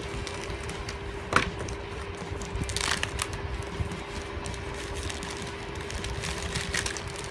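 Plastic packaging being opened and handled: scattered crinkles and crackles, a sharp click about a second and a half in and a short rip or rustle about three seconds in, over a steady background hum.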